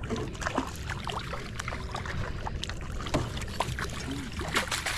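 Water splashing and slapping at the side of a small boat as a hooked largemouth bass is brought alongside and scooped into a landing net, with many small clicks and knocks of the net and rod against the boat. The biggest splash comes near the end as the net goes under the fish.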